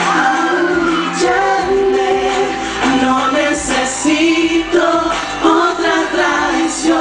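Male pop vocal group singing live into handheld microphones, several voices holding notes together in harmony.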